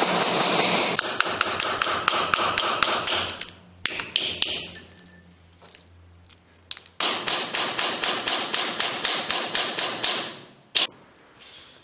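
A hand tool chipping and scraping at building material to take a sample, in rapid repeated strokes of about six a second. There are two spells of this, the first ending just before four seconds in and the second from about seven to ten seconds in, followed by one sharp knock.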